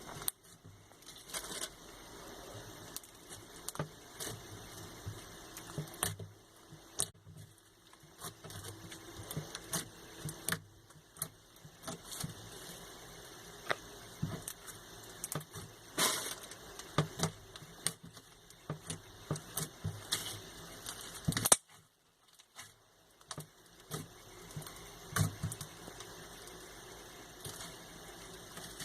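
Slime being squeezed and worked by hand, making irregular clicks, pops and wet crackles.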